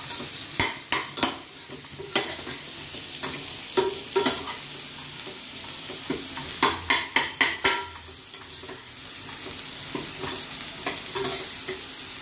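Metal spatula scraping and clicking against a stainless-steel kadai as a tomato-onion masala is stirred, in several short bursts, over a steady frying sizzle from the pans.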